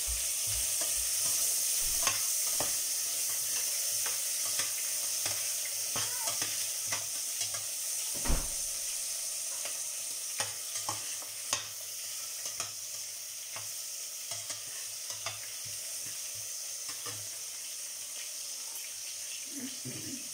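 Onion, garlic, lemongrass and tomato sizzling as they sauté in a stainless steel pot, stirred with a metal spatula that scrapes and taps against the pot, with a louder knock about eight seconds in. The sizzle grows a little quieter in the second half.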